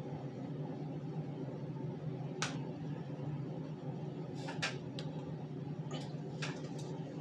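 A few short clicks and scratches as the plastic hanging-tag clip on a plush toy is picked and pulled loose by hand, over a steady low hum.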